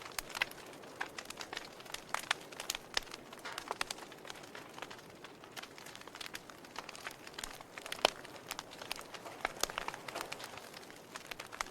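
Wood fire crackling in a fireplace: irregular sharp pops and snaps, several a second, over a soft hiss of burning.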